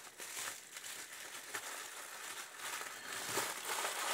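Plastic packaging crinkling and rustling as it is handled, growing louder about three seconds in.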